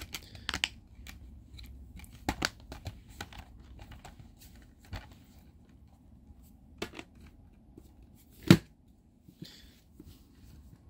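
Disc cases being handled: scattered light clicks and taps, with one sharp knock about eight and a half seconds in.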